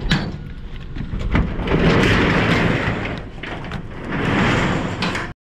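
Metal roll-up door of a storage unit being pulled down, rattling along its tracks with sharp clanks. It stops suddenly near the end.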